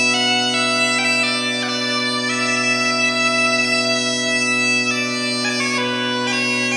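Bagpipe playing a slow melody over a steady low drone: a run of short notes, one long held note in the middle, then quicker notes near the end.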